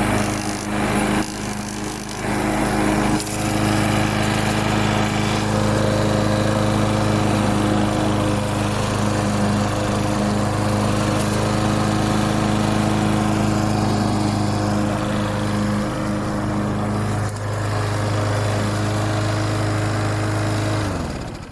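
Craftsman walk-behind lawnmower's 6.75 hp single-cylinder four-stroke engine running steadily at speed, with a brief unsteady dip about two seconds in. Near the end it is shut off and winds down to a stop.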